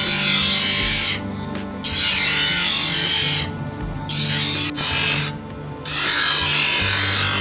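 Rasping abrasive work on the steel blade of a sickle made from a chainsaw bar: four long passes, each about a second and a half, with short breaks between them, over a steady low hum.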